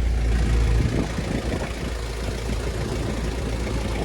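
Engine and road noise heard inside a 1999 Jeep Cherokee's cabin while driving. The deep rumble drops about a second in, leaving a lighter, uneven rumble with small knocks.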